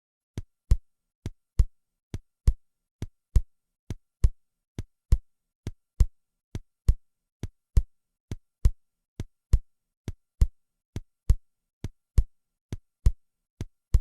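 Simulated normal heart sounds as heard over the base of the heart, at the aortic and pulmonary areas in the second intercostal spaces. They play as an even rhythm of paired beats, about 70 a minute, and the second heart sound of each pair is louder than the first, which is normal at these sites.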